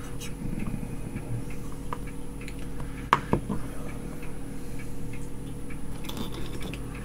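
Scattered light clicks and handling noise from a small circuit board with a rotary switch being turned over in the fingers, with one sharper click about three seconds in, over a steady low hum.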